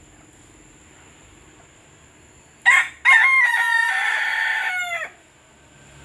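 A rooster crowing once, loud against a faint background: a short opening note, then a long held note of about two seconds whose pitch drops as it ends.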